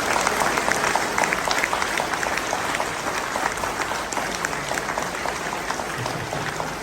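An audience applauding in a large room, the clapping slowly dying down toward the end, with a few voices under it.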